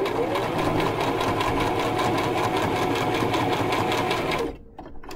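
Electric domestic sewing machine running at a steady speed as it stitches a straight line of top stitching through two layers of fabric, then stopping about four and a half seconds in.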